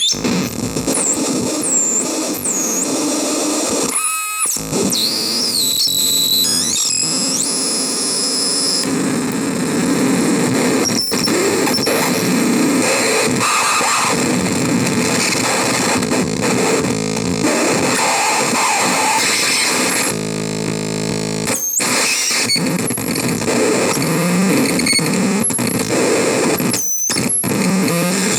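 CMOS-based harsh noise synth producing dense, distorted noise with squealing high-pitched glides that swoop up and down. It cuts out briefly a few times, and shifts to a buzzing tone for a second or so near the end.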